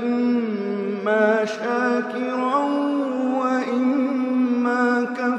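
A man's voice chanting in long, drawn-out melodic notes that step up and down, in the chanted style of Quran recitation (tilawat).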